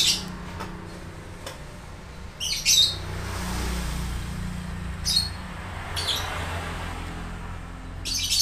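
A bird chirping: short, high-pitched calls every two to three seconds, over a low steady hum.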